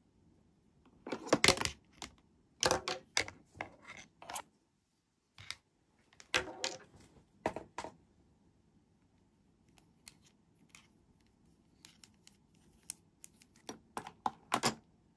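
Hard plastic toy doctor-kit pieces, a pair of toy glasses among them, being handled and set down: clusters of light clicks and taps, loudest about a second in. Scattered ticks follow, with a few more taps near the end.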